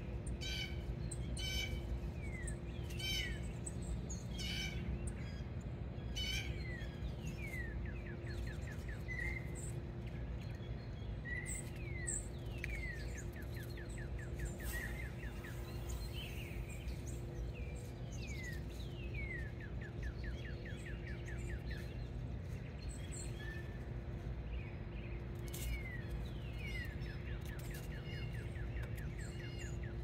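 Small songbirds chirping and calling, with many quick descending chirps and a few rapid trills, over a steady low hum and background rumble.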